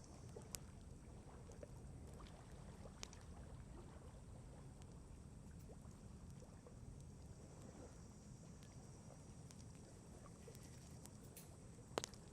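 Wood campfire crackling faintly, with a few sparse sharp pops, the loudest near the end, over a low steady background rumble.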